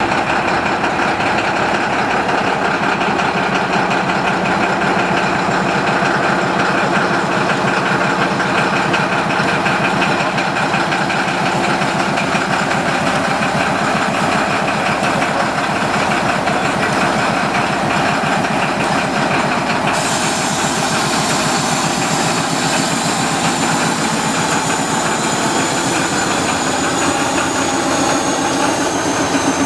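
Small diesel shunting locomotive's engine idling steadily with a rhythmic knock. About two-thirds through, a high hiss with a faint high tone joins it.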